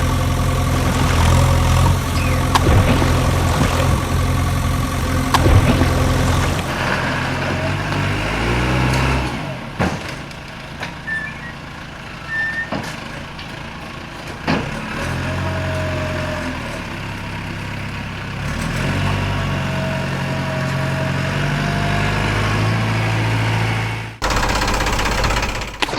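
Heavy-vehicle engine sound, low and steady like a diesel idling, that switches abruptly between sections, dropping and returning several times and cutting off sharply near the end, with a few clicks in between.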